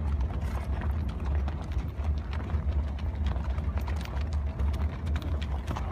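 Several horses walking, their hooves clip-clopping irregularly on dry, stony desert ground. A steady low rumble runs underneath and is the loudest part of the sound.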